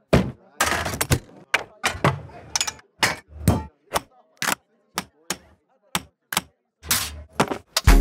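A quick series of about twenty short, sharp knocks, clacks and thumps from film equipment being handled, beginning with a wooden crate lid banging shut. Near silence falls between the hits, and some are followed by a short rush of noise.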